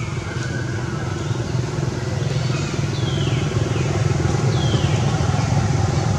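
A motor engine running steadily at low pitch, slowly getting louder. Several short high squeaks falling in pitch occur near the middle.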